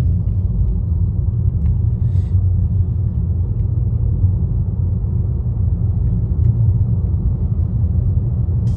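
Steady low rumble with no clear pitch and no separate events.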